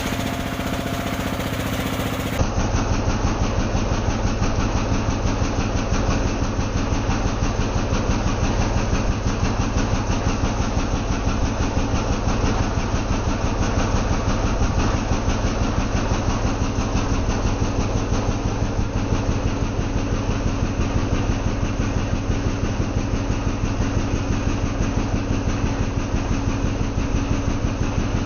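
A small engine running at a steady speed, with a rapid, even pulse.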